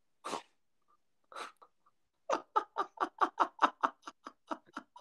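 Men laughing: two short breathy bursts, then from about halfway a rapid, rhythmic run of 'ha-ha' pulses, about five a second.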